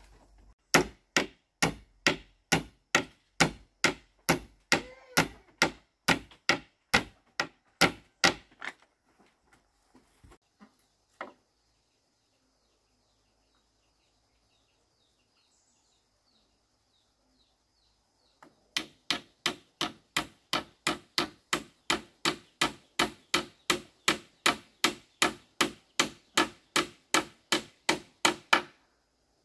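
A hand tool striking wood with steady, evenly spaced blows, about three a second. The blows come in two long runs, each of eight to ten seconds, with a few stray knocks and a pause of several seconds between them.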